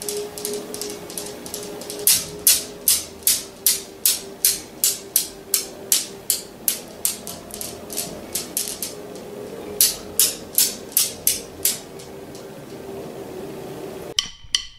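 Steel balls of a Newton's cradle desk toy clacking in a steady rhythm, about three clicks a second, knocked into motion by a cat's paw. The clacking fades away, then starts again about ten seconds in and fades once more.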